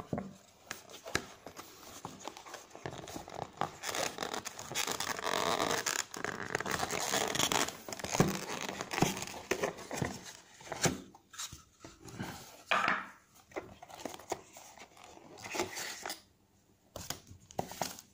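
Cardboard packaging of a Google Home Mini box being handled: flaps and inner pieces pushed open and a paper insert pulled out, with continuous rustling, scraping and crinkling and many small knocks, dying away near the end.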